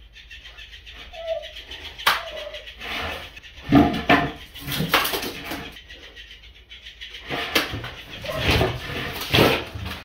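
A dog's short whine, then irregular flapping, scuffling and thumping noises on a hard floor, with the sharpest strike about two seconds in.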